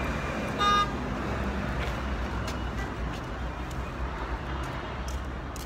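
Street traffic noise with a steady low rumble of passing vehicles, and one short vehicle horn toot well under a second in.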